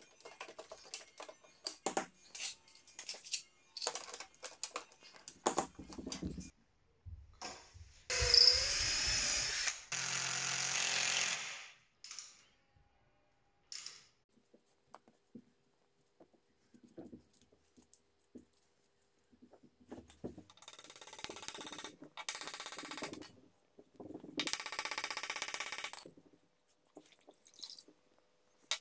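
Workshop handling clicks and knocks from clamps and timber, then two runs of a cordless drill a third of the way in. The drill's pitch falls during the first run. Later come two longer stretches of rasping work noise.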